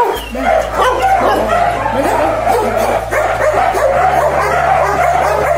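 Several dogs barking, yipping and whining at once, their calls overlapping without a break.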